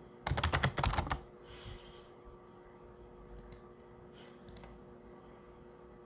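Typing on a computer keyboard: a quick run of keystrokes in the first second, then a few single clicks a couple of seconds later.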